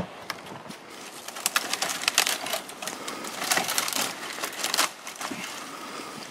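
Dry conifer twigs and branches snapping and crackling as they are broken off by hand, in a rapid run of sharp cracks from about one to five seconds in.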